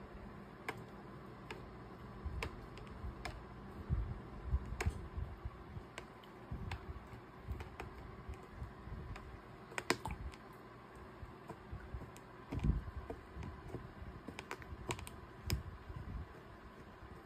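Irregular light clicks and taps, a few louder than the rest, with some low soft knocks.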